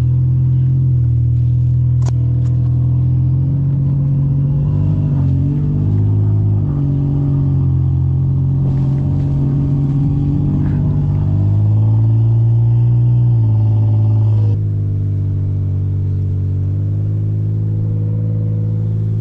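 Toyota Tacoma pickup's engine running on snow, its revs rising and falling several times. A sharp click about two seconds in, and the sound turns duller and a little quieter near fifteen seconds in.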